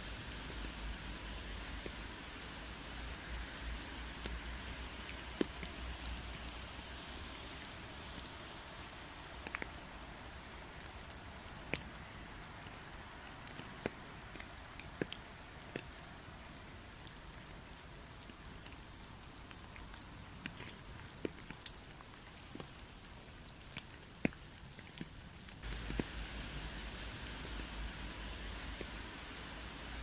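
Steady rain hissing, with individual drops ticking sharply here and there. A low rumble underlies it for the first several seconds and returns near the end.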